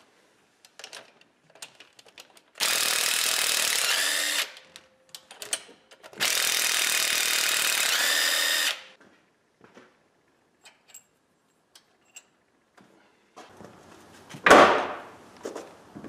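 Cordless power driver spinning bolts out of an 8.1 Vortec big-block's cylinder head in two runs of about two seconds each; the motor rises in pitch just before each run stops. Small clicks and tool clatter come between the runs, and a single loud knock near the end.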